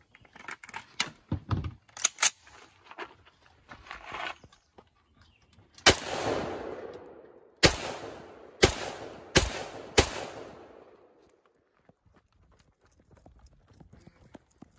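Metallic clicks and clacks of an SKS rifle being handled and loaded. About six seconds in come five shots from the SKS, a semi-automatic 7.62×39 rifle, unevenly spaced over about four seconds, each with an echoing tail.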